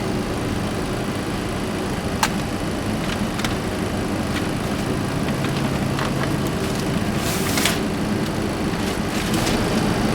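Boeing 737-300 flight deck during the start of engine number 1: a steady hum and rumble of air and engine noise. A few sharp clicks come about two and three and a half seconds in, and a short hiss about seven seconds in.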